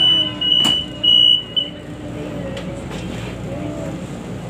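Light-rail train's warning buzzer beeping in a few quick pulses of one high tone while stopped at the platform, typical of the door-closing signal, with a single knock partway through; the buzzer stops about two seconds in, leaving the carriage's steady low rumble.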